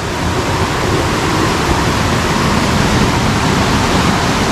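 Loud, steady rush of water from a rocky hill stream cascading close by.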